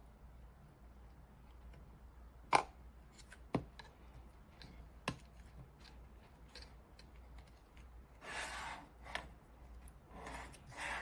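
Handling noise from a handheld diagnostic scan tool being reassembled. Three sharp plastic clicks come as the new battery and its lead are fitted and pressed into place. Near the end there are two short stretches of scraping as the plastic housing is slid and turned on the tabletop.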